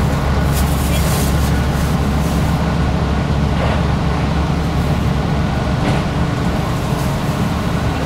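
JR Hokkaido KiHa 183 series 5200 diesel railcar running along the line, heard from just behind the driver's cab: a steady low diesel drone with the rumble of wheels on rail.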